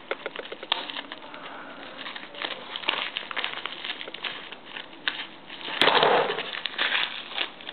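Scissors snipping through a plastic mailer pouch, the packaging crinkling and crackling in the hands with many small clicks. About six seconds in there is a louder burst of crinkling as the cut pouch is pulled open.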